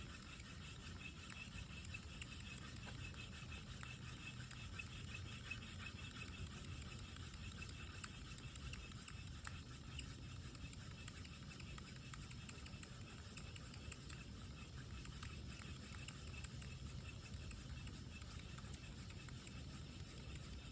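Faint, steady rubbing of a wooden hand-drill spindle twisting in a wooden hearth board under light pressure, the board still being warmed up before any smoke.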